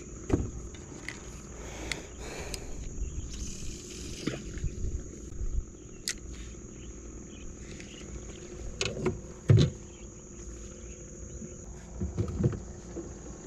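Fishing rod, line and tackle being handled in a small boat: scattered clicks and knocks, with a few louder thumps a little past the middle and near the end. A steady high insect drone runs underneath.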